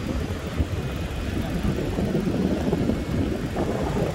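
Wind buffeting the microphone on an open beach: a steady low rumble, with the wash of surf beneath it.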